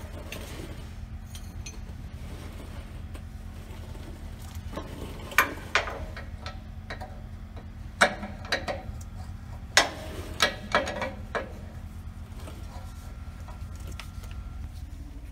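Sharp metallic clinks and knocks of hand tools on a Freightliner truck's driveshaft center support bearing mount, scattered and irregular, loudest about a third of the way in and through the middle, as the worn center bearing is being replaced. A steady low hum runs underneath.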